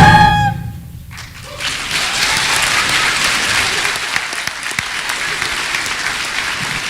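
The last held chord of a school band and choir dies away, and about a second later a large audience breaks into steady applause.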